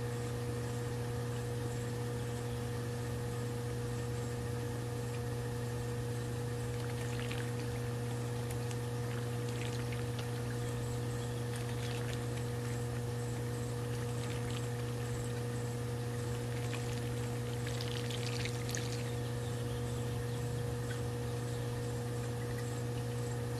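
Water splashing and pouring as a Dolphin robotic pool cleaner breaks the surface at the pool's waterline, the splashes coming and going through the middle part and strongest near the end of that stretch, over a steady low hum.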